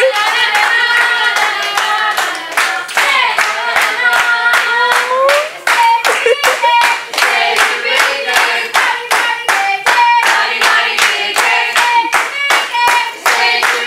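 A group of people singing together while clapping along in a steady beat, about two to three claps a second.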